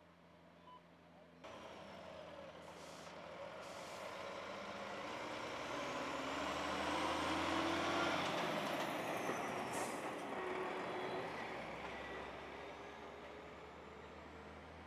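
Heavy bulk tanker truck with a tank trailer driving past close by, its engine and tyre noise swelling to a peak about halfway through and fading away. A few short hisses, typical of truck air brakes, come early on and again near the peak.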